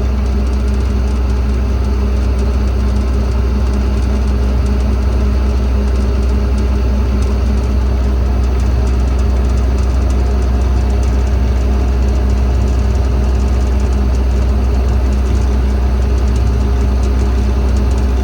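Cat C7 diesel engine of a service truck running steadily at raised idle, driving the hydraulic air compressor as it builds air pressure toward 120 psi.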